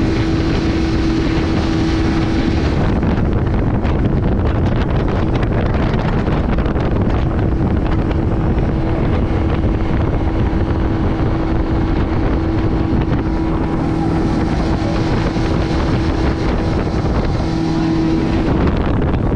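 Motorboat engine running steadily at speed, a constant hum under the rush of wind on the microphone and water spraying off the inflatable hull.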